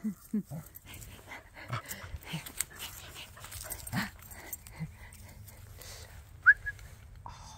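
Two dogs greeting and sniffing each other: quiet snuffling and a few soft low sounds, then about six and a half seconds in a single short, high, rising whimper.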